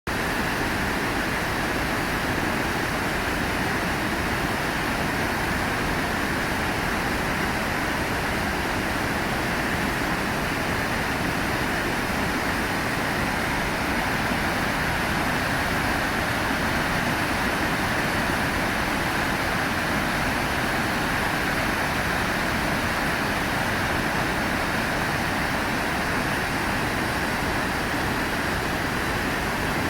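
Sogi Falls, a broad waterfall, pouring in a steady, unchanging rush of water noise.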